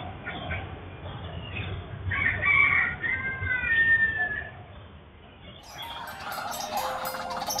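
A rooster crowing once, a drawn-out call of about two seconds that falls off at the end, starting about two seconds in. Near the end, music fades in.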